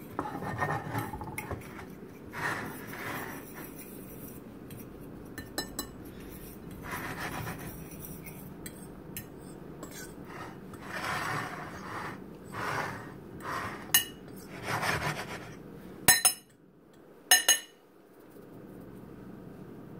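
Metal fork stirring seasoning into almond flour in a ceramic pie dish: repeated gritty scraping swishes, with three sharp clinks of the fork against the dish in the second half.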